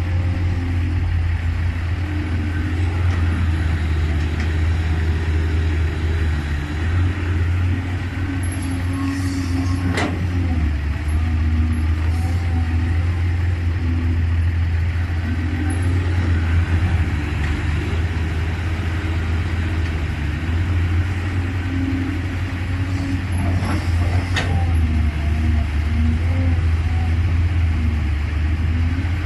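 Caterpillar 320C excavator's six-cylinder diesel engine running steadily as the machine digs, its note rising and falling a little with the load. Two sharp knocks come through, one about a third of the way in and another near the end.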